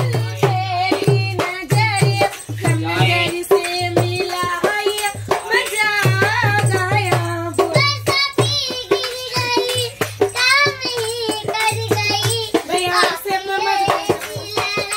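A young woman singing a Hindi song with a wavering, ornamented melody, over a low, regular drum-like beat.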